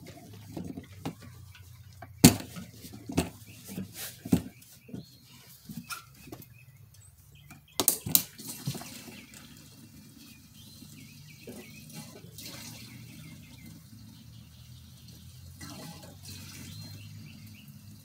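Gasoline being poured from a can into the fuel tank of a Husqvarna YTH22V46 riding mower. A few sharp knocks come in the first half, then the pour runs on steadily.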